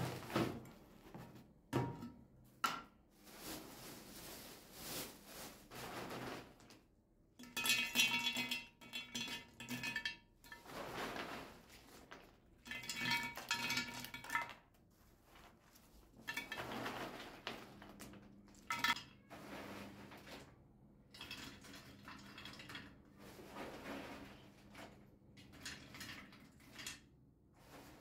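Almonds being poured and dropped into an empty glass storage jar: two long bursts of nuts rattling and clinking against the glass, which rings. Between them come shorter clinks of glass and plastic bags rustling.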